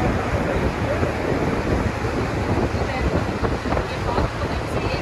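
Steady rush of wind and water aboard a lake passenger boat under way, with wind buffeting the microphone.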